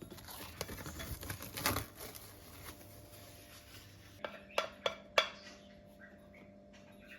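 Kitchenware being handled: about two seconds of scraping and rustling, then four sharp clinks in quick succession, like dishes or utensils being set down.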